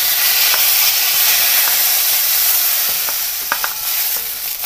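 Whole small brinjals (eggplants) sizzling in hot oil in a kadhai, roasted for bharit, with a steady hiss. A wooden spatula scrapes and knocks against the pan a few times as they are turned and lifted out.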